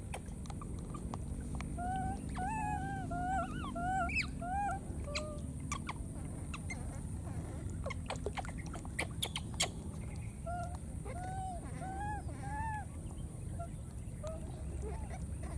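Baby macaques crying: a run of short, arched cries, about two to three a second, in two bouts, the first a couple of seconds in and the second about ten seconds in. Between the bouts come a few sharp clicks, over a low steady rumble.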